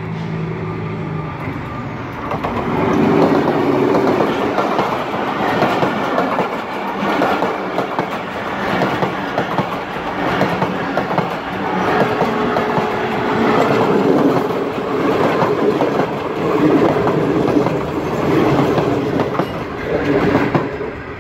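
A diesel locomotive runs up with its engine humming and passes about two seconds in, followed by its passenger coaches rolling past close by with a steady clickety-clack of wheels over the rail joints. A brief steady ring rises out of the clatter about halfway through.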